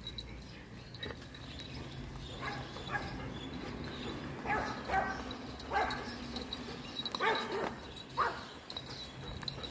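Golden retriever giving several short whines and yips, starting a couple of seconds in and spaced about a second apart.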